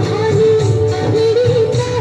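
A song with a singer holding long, wavering notes over a steady instrumental backing.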